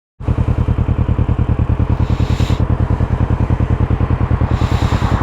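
Motorcycle engine running steadily with an even, rapid pulsing beat, with two brief rushes of hiss over it.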